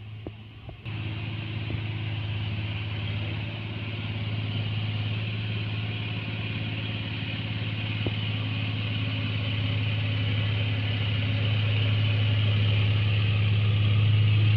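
Engine of a small tracked hauling machine (a 'lipan') running steadily with a low hum, coming in abruptly about a second in and growing gradually louder.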